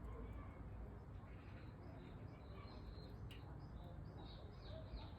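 Faint birds chirping in many short calls, busiest in the second half, over a low outdoor rumble, with one sharp click a little after three seconds in.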